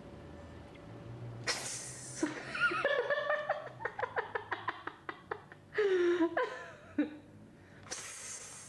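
A person laughing: a breathy start, then a quick run of short laughing pulses and a falling drawn-out laugh, with another breathy rush near the end.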